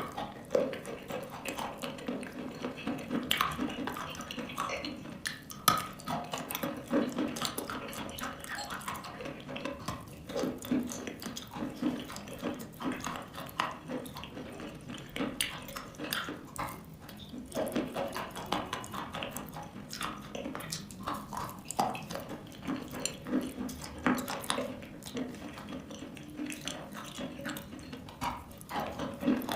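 Close-up wet crunching and chewing of chalk: a dense, irregular run of crisp crunches and moist clicks with no pause.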